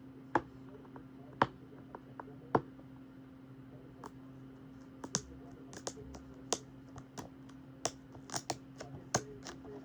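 Sharp clicks and taps of fingers handling a plastic DVD case. There are a few spaced-out clicks at first, then quicker, busier clicking in the second half.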